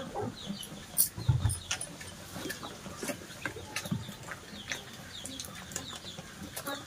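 Chickens clucking, with many short sharp ticks and a louder low thump about a second in.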